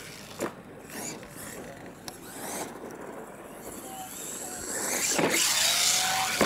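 RC monster truck on a dirt track: a thud of a landing about half a second in, then tyres churning loose dirt, growing loud from about four and a half seconds with another thud near five seconds as it powers across the dirt and launches into a jump.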